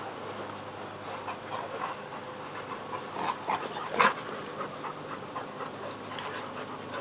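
Dogs at play, making short, sharp sounds that bunch together about three to four seconds in; the loudest comes about four seconds in.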